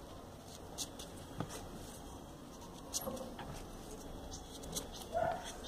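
Soft clicks and rustles of small folded paper pieces being handled and pushed into a 3D origami model. Two short, high whines cut in, one about three seconds in and a slightly louder one near the end.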